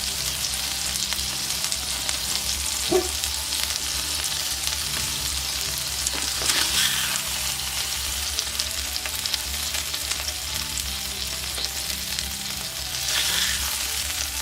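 Smashed beef patties and thinly sliced onions sizzling steadily on a hot cooking surface, a dense crackle, with a few brief louder moments about three, six and thirteen seconds in.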